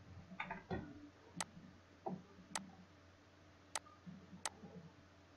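Four sharp computer mouse clicks, roughly a second apart, with a softer brief clatter just before the first, over a faint steady hum.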